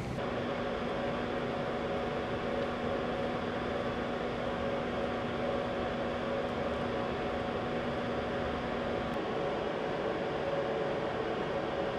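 Steady hiss with a low, even hum, like ventilation or machinery background noise. The lower hum tone drops out about nine seconds in.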